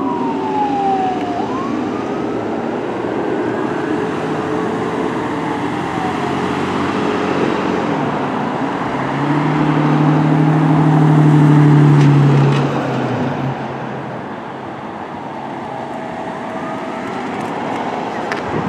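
Fire engine siren wailing, rising and falling in pitch over passing road traffic, then fading. About nine seconds in, a long low horn blast lasting about four seconds is the loudest sound, and the siren wails faintly again near the end.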